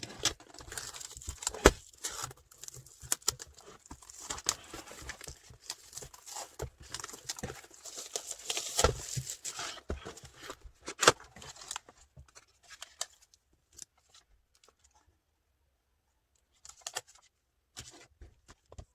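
Packaging being unwrapped and handled: dense rustling and crinkling with sharp clicks and taps for the first twelve seconds or so, then only a few scattered taps and a short rustle near the end.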